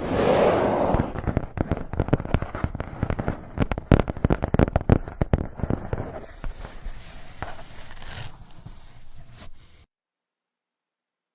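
ASMR-style handling in a refrigerator: rapid clicks, taps and clatters of hard items, with a rustling burst at the start. The clatter thins out and then cuts off abruptly near the end.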